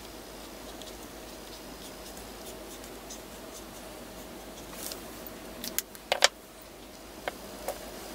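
Faber-Castell India ink pen drawing on a collaged paper page, its tip faintly scratching, then a cluster of sharp clicks and taps about five to six seconds in.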